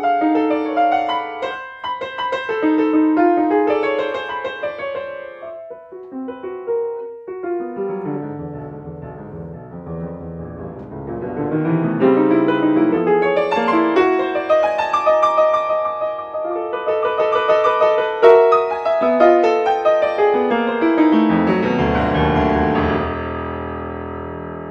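Piano playing a contemporary classical piece: a busy passage, then sparser, quieter notes, then a dense, louder run of notes and chords. Near the end a deep chord is struck and left to ring and fade.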